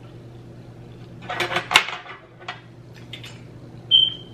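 Eating utensils clicking and scraping against an aluminium sheet pan of food, with a short high-pitched note near the end.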